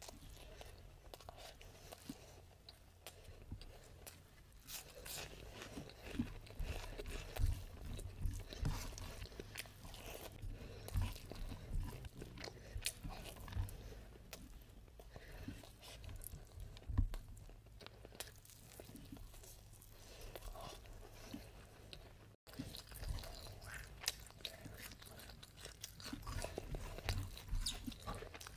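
A person eating mutton biryani by hand: chewing and wet mouth smacks from handfuls of rice, with soft clicks coming at irregular intervals. The sound drops out for an instant about two-thirds of the way through.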